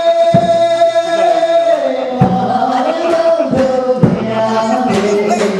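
Music with a voice singing a long held note, then more singing over slow, spaced-out drum beats.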